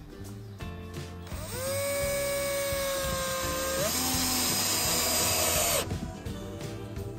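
Cordless drill driving a screw through a corrugated roofing panel into a wooden frame. The motor whines steadily for about four seconds, steps up in pitch partway through, then cuts off as the screw seats.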